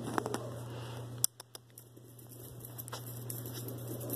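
Scattered light clicks and taps over a low steady hum, with a sharp click a little over a second in, after which the background drops away and only a few faint ticks remain.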